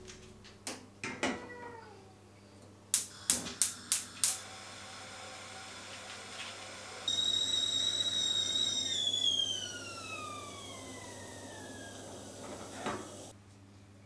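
A stainless-steel whistling kettle is set down on a gas hob's grate with a few clanks, then the hob's igniter clicks five times in quick succession. About seven seconds in, the kettle's whistle starts at a steady high pitch, then slides down in pitch and fades as it comes off the boil, with a single click near the end.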